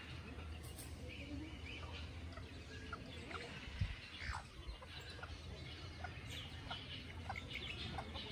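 Chickens clucking quietly, a scatter of short calls.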